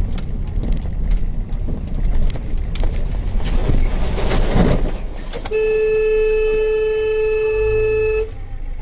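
Road and engine rumble of a car driving in traffic, swelling as a flatbed truck passes close alongside about four seconds in. Then a vehicle horn sounds one long, steady blast of nearly three seconds, starting about five and a half seconds in.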